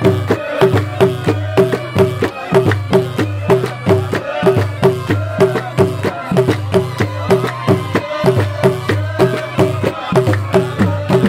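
Traditional drums beating a steady, even rhythm of about three strikes a second, with voices chanting over it: the music of a baroud dance troupe.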